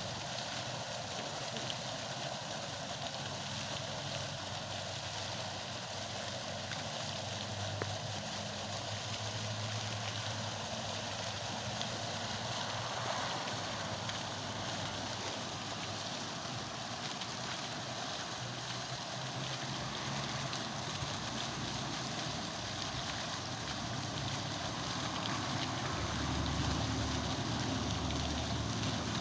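Water fountain splashing: a steady rush of falling water. A low hum rises under it near the end.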